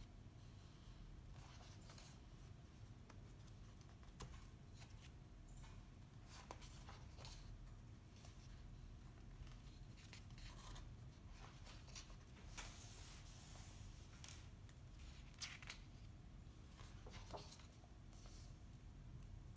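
Faint rustling and rubbing of paper as the pages of a large printed book are handled and turned by hand, with a longer swish of a page turning about two-thirds of the way through.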